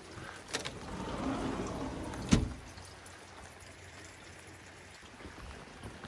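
Heavy rain falling steadily, with water pouring and splashing for about a second, then a single sharp bang about two seconds in.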